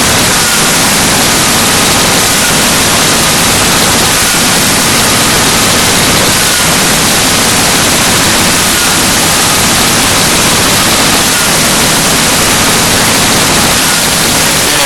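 Loud, steady static hiss from a faulty audio recording, drowning out everything else.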